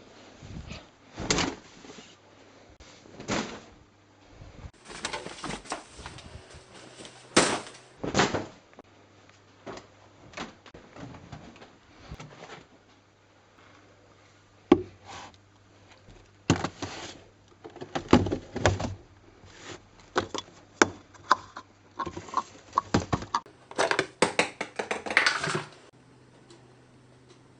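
Hands working a washing machine: a string of irregular knocks, clicks and bumps, typical of its door and fittings being opened, shut and handled, with rustling between them and a longer stretch of rustling near the end.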